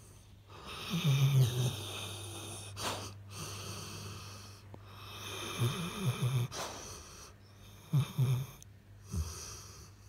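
A sleeping Labrador retriever snoring: three snores a few seconds apart, with breathing noise between them.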